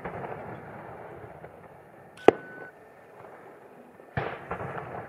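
Fireworks shells exploding: one sharp, loud bang about two seconds in, then a softer burst followed by a few quick crackles near the end.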